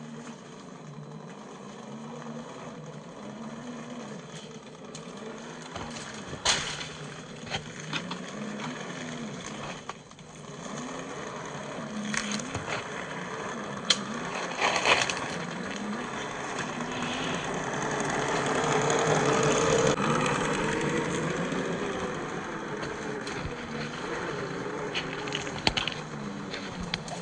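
1/10-scale Axial SCX10 III RC crawler's brushed 540 27T electric motor and gear drivetrain whining, its pitch rising and falling again and again with the throttle. It is loudest about twenty seconds in, with scattered sharp clicks and knocks along the way.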